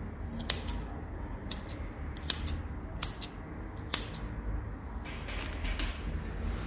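Curved grooming scissors snipping the hair between a dog's paw pads: short crisp snips every second or so, several in quick pairs.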